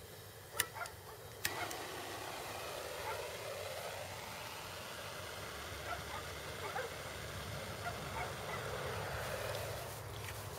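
A sharp click about one and a half seconds in, then a steady hiss of something lit and burning, the igniter of an incendiary charge that flares into a bright fire near the end.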